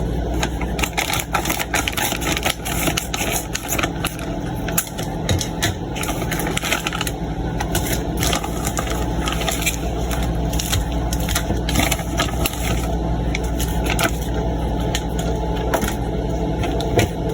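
Plastic packaging of tilapia loins crinkling and crackling as the packs are cut and opened, in a stream of small clicks, over a steady low hum.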